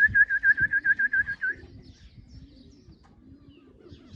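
A quick high whistled trill of about a dozen short notes lasting about a second and a half, then soft low cooing of pigeons.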